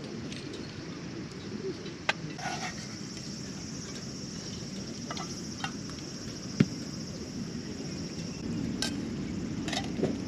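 Insects chirring in a steady high band that sets in a couple of seconds in, over a low steady outdoor rumble, with a few sharp clicks and knocks; the sharpest knock comes about six and a half seconds in.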